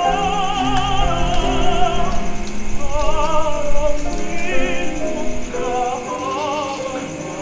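Background music: operatic singing with a wide vibrato over sustained orchestral accompaniment, fading near the end.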